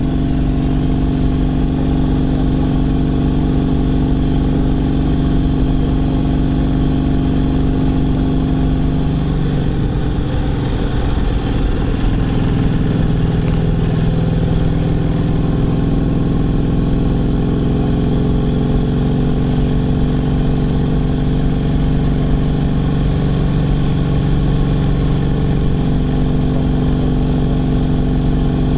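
Brough Superior SS100's V-twin engine running as the motorcycle is ridden. The engine note shifts about ten seconds in, then slowly climbs.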